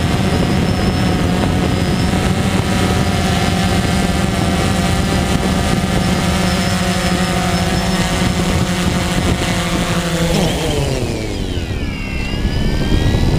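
DJI Phantom 2 quadcopter's T-Motor MN2214 motors and propellers buzzing steadily, heard from the camera on the drone. About ten seconds in the pitch drops steeply as the motors throttle down for the descent to the ground, then climbs a little and holds near the end.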